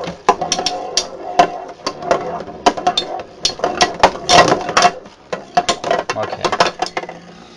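Two metal Beyblade spinning tops clashing in a plastic stadium: rapid, irregular metallic clicks and clacks as they hit each other and the stadium walls, over a faint steady whir of their spinning tips. The hits thin out near the end.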